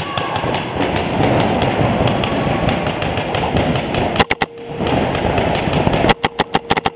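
Many paintball markers firing in a dense, continuous rapid crackle. A marker close by fires two quick strings of sharp shots, a little after four seconds in and again near the end.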